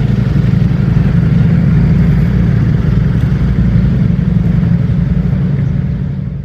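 Ducati Streetfighter V4 S's 1103 cc V4 engine running steadily at an even, low pitch, fading out at the very end.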